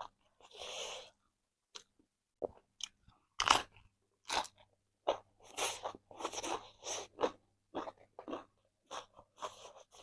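Someone chewing and crunching chicken close to the microphone: a run of short crisp crunches, about two a second, after a quieter first two seconds.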